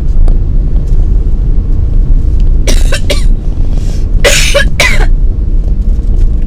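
A young woman coughing in two short bursts, about three seconds in and again a second later: put-on coughs faked as a prank. A loud, steady low rumble of the moving vehicle runs underneath.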